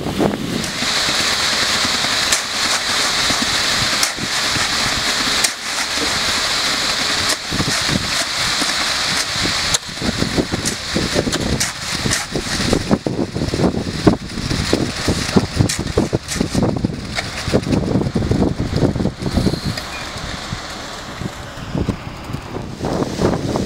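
Concrete mixer truck running, with a steady hiss through roughly the first half, and gusts of wind buffeting the microphone.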